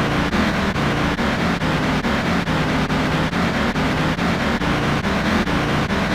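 Dense, distorted electronic music: many layered synthesized tones and noises stacked over a steady pulsing beat.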